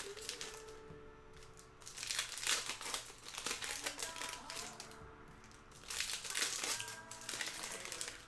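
Trading card pack wrappers crinkling as packs are torn open and handled, in three bursts, with faint singing in the background.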